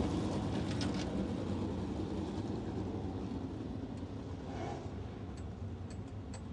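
Sprint car engine running low and steady, a deep rumble that slowly grows quieter.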